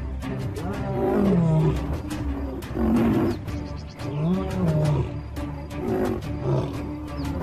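Lion roars, several in a row, their pitch rising and falling, over background music.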